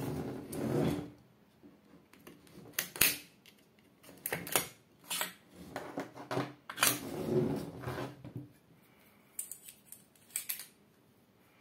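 Steel and wooden parts of a Norinco Type 56 AK rifle being handled and fitted during stripping: a string of sharp metallic clicks and clacks, the loudest about three seconds in, with duller knocks and handling rustle between them.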